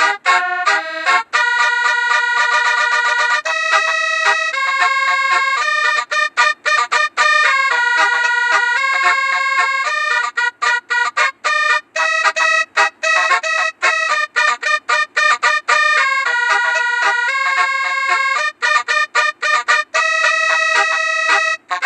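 A 36-note telolet basuri bus horn plays a tune. Runs of quick staccato toots alternate with held chords of several horn notes.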